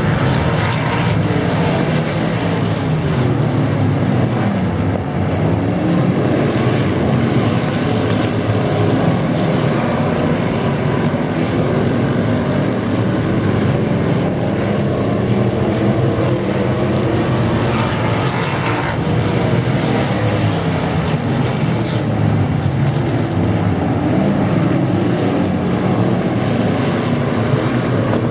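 Race car engine running hard and steady at high revs.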